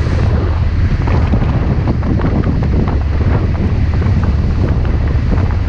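Wind buffeting the microphone on the open deck of a rescue vessel under way at sea, over a steady low rumble from the boat and the sea.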